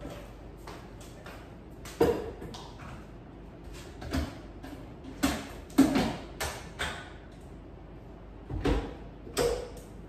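Scattered knocks and clunks of kitchen things being handled and set down on a countertop, about eight of them, the sharpest about two seconds in and about six seconds in.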